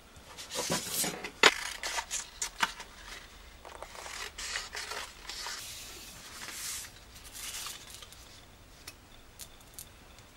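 Paper template and hand tools being handled on a wooden workbench: paper rustling and scraping, with a quick run of sharp clicks and taps in the first few seconds, the loudest about a second and a half in, and a few faint ticks near the end.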